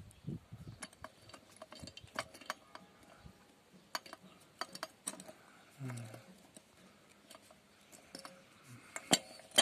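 Scattered light clicks and taps of a Garrett turbocharger being handled, a finger working the compressor wheel inside the inlet to feel the shaft, which wobbles loosely. A brief low murmur of a voice about six seconds in.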